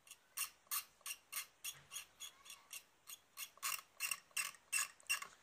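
Scalpel blade scraping the paint off a guitar body in short, quick strokes, about three a second, chipping through the grey colour coat and metal-flake layer.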